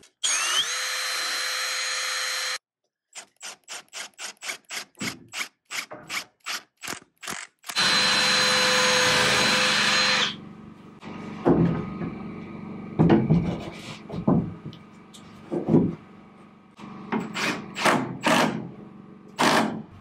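Power drill running in two steady bursts of a couple of seconds each, the first with a rising whine as it spins up, and a quick string of short pulses between them. After that come irregular knocks and clunks.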